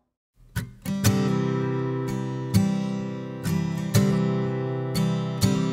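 Background music of a strummed acoustic guitar. It starts about half a second in, with steady ringing chords and a strong strum about every second and a half.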